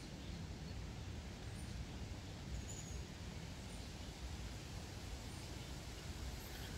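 Outdoor ambience: a steady low rumble with a few faint, short, high-pitched chirps scattered through it.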